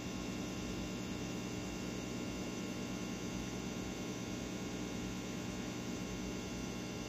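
Aquarium equipment running: a steady hum with an even hiss over it.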